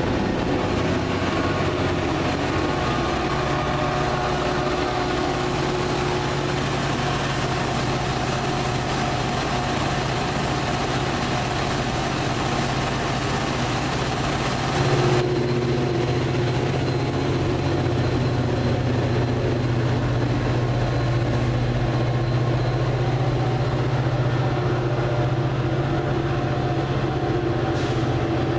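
Commuter train's locomotive engine running steadily with a low hum. The sound shifts abruptly about halfway through.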